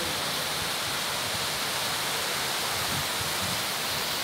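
Steady rain falling on foliage and ground: an even hiss with no breaks.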